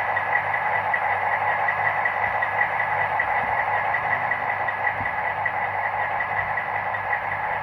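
Diesel locomotive engine sound from a sound decoder for a model of a PKP SU45/SP45 diesel locomotive, running steadily at a constant speed. It is played through the model's small speaker, so it has little bass.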